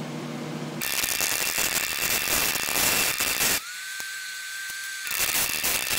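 MIG welder crackling and hissing as it tack-welds steel, in two runs: about three seconds, a pause of a second and a half, then welding again. A low hum is heard before the first strike.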